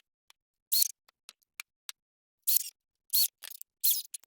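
Cordless screwdriver driving small screws in short trigger bursts of about a quarter second, about one, two and a half, three and a quarter, and four seconds in, fixing plastic lock tenon parts into a board; light clicks of handling between the bursts.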